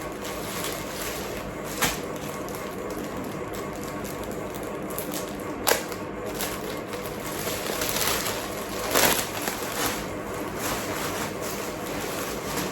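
Rustling and crinkling as clothes are handled and taken out of their packaging, with a couple of sharp clicks and louder crinkles about eight and nine seconds in.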